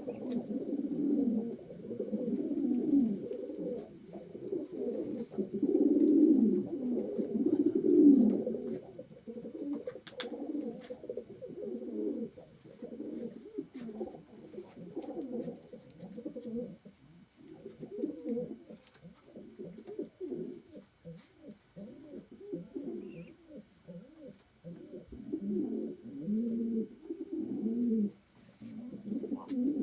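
Many racing pigeons cooing together, with low, throaty overlapping calls.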